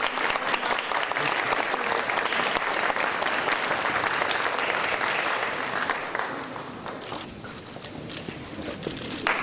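A large group of schoolchildren applauding: dense, steady clapping that thins out and dies down about six seconds in.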